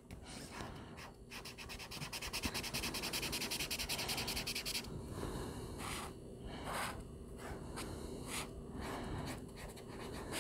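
Acrylic paint marker tip scribbling on tan sketchbook paper, filling in a dark blue swatch. Fast, even back-and-forth strokes for the first few seconds, then slower, separate strokes.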